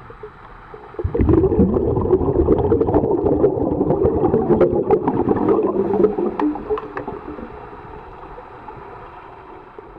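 Bubbling, gurgling rush of a scuba diver's exhaled air heard underwater, starting suddenly about a second in and fading away over the last few seconds.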